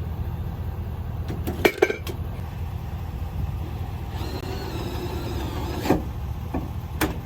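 A vehicle engine runs with a steady low rumble. A few sharp clicks come about two seconds in, and a pitched mechanical whine lasts under two seconds around the middle before ending in a click.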